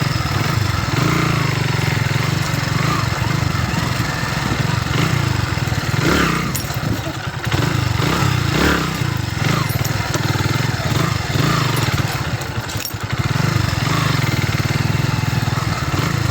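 Kawasaki W175TR motorcycle's single-cylinder engine running under way, its note rising and easing with the throttle. It drops back briefly a few times, around a third, halfway and three quarters of the way through.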